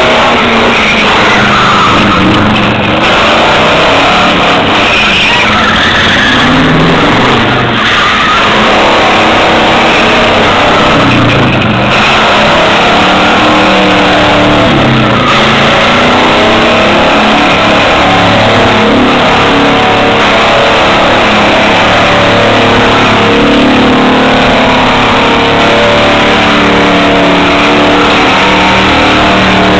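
Homemade jerico's engine running hard and revving as the vehicle spins doughnuts on dirt, with its tyres skidding; the engine note rises and falls, then holds steadier in the second half.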